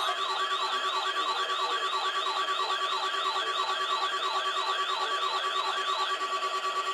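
Weather radio alarms sounding: a siren-like rising whoop repeating about three times a second over a steady high tone. The whoops stop shortly before the end, and the steady tone holds on a moment longer.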